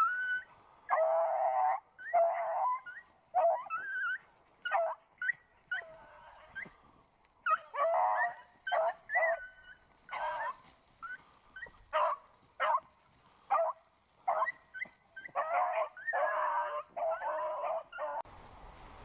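Beagles baying as they run a rabbit's scent trail: a string of drawn-out bawls and shorter yelps from more than one hound, one call after another with short breaks.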